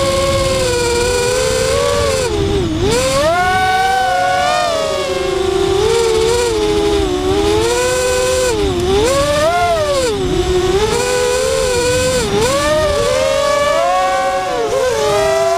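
Brushless motors and propellers of an ImmersionRC Vortex FPV racing quadcopter whining, heard from its onboard camera. Several close tones swoop up and down together in pitch as the throttle is worked, with sharp dips about three seconds in and again around nine and twelve seconds.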